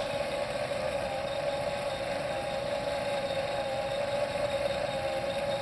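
Motorized fire tornado rig running, its electric motor run at 32 volts giving a steady whine over an even rush of noise from the spinning flame column.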